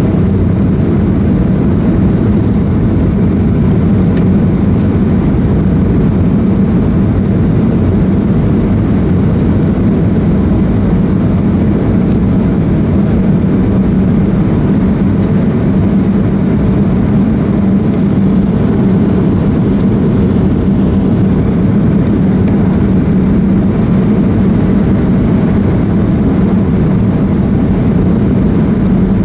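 Cabin noise inside a Boeing 737-300 with its CFM56 turbofans running: a steady, loud low drone of engines and airflow, with a constant hum.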